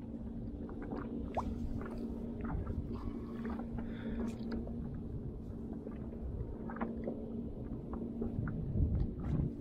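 Water lapping and sloshing against the hull of a small inflatable boat, over a steady low hum, with scattered light clicks and ticks.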